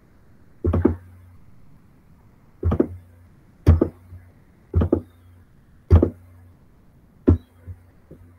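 Six heavy percussive hits, roughly one a second, each followed by a brief low hum: the cinematic sound design of a video advertisement playing over a screen share.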